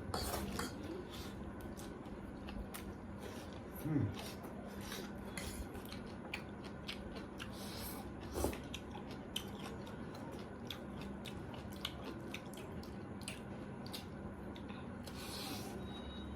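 Eating sounds: many small clicks of chewing and mouth noises with light plate and utensil clatter, over a low steady hum. A short vocal sound about four seconds in is the loudest moment.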